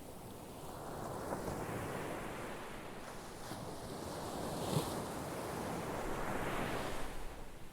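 Ocean surf washing in as a steady hiss that swells, with a short crash of a breaking wave a little past the middle, a second swell after it, and a fall-off near the end.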